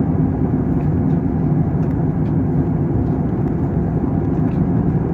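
Steady low roar of an airliner in flight, heard inside the passenger cabin: engine and airflow noise with no change in level.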